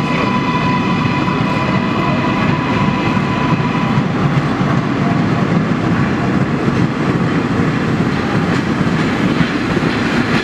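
Vintage subway train pulling into an underground station, its wheels rumbling and clattering on the rails. A steady high ringing tone is heard in the first few seconds and fades away.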